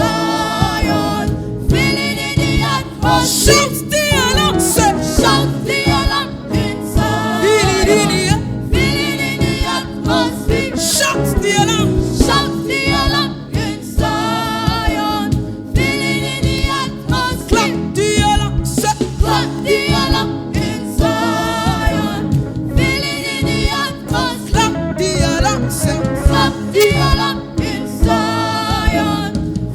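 Gospel vocal group singing with a band, several voices together over steady instrumental backing.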